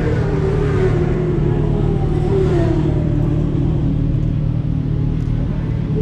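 Inline-four sport-bike engines idling close by, one engine's revs slowly easing down over the first few seconds.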